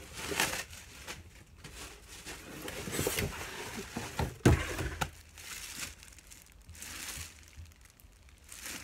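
Plastic wrapping crinkling and rustling as a plastic-wrapped sleeping bag is pulled out of a cardboard box and handled, with a thump about four and a half seconds in.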